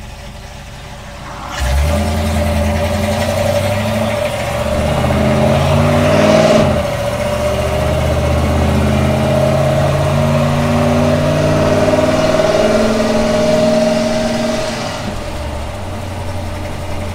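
Dodge D100 pickup's engine, heard inside the cab, accelerating as the truck pulls out onto the road, with the automatic transmission shifting up about six and a half seconds in. It then pulls steadily and eases off near the end.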